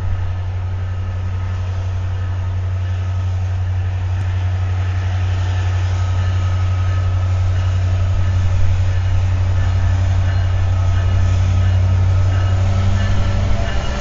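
Two EMD SD70ACe diesel-electric locomotives passing, their engines running with a deep steady drone that grows louder as they come by and eases off a little near the end.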